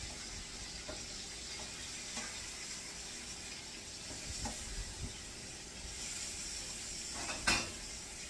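Salmon fillets sizzling as they fry in butter in a non-stick pan, a steady hiss with a few light clicks of a utensil against the pan and one sharp clack near the end.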